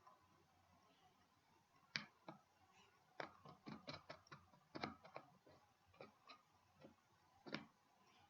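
Scattered light clicks and taps, about a dozen at irregular spacing, from a plastic lid and paintbrush being handled while painting.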